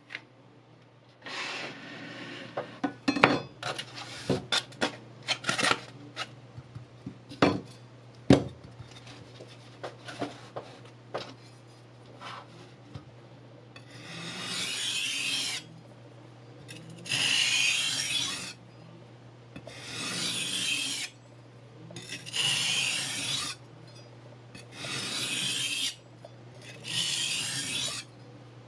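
Kitchen knife blade drawn along sandpaper on a block in long, even scraping strokes, about one every three seconds, starting about halfway through. Before that, a scatter of sharp clicks and knocks as the knife and block are handled.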